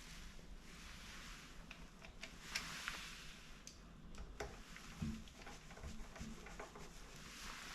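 Scattered small clicks and light knocks of screws, a screwdriver and metal housing parts being handled while a stand mixer is put back together, over a steady faint hiss.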